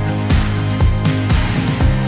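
Background music with a steady beat, about two beats a second, over held bass notes.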